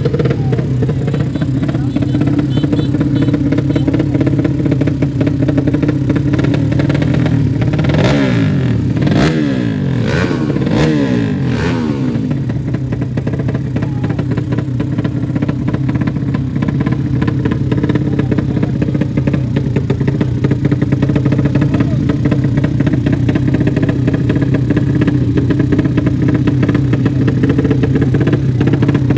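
Drag-race motorcycle engines running steadily, with a spell of revving that rises and falls in pitch about eight to twelve seconds in.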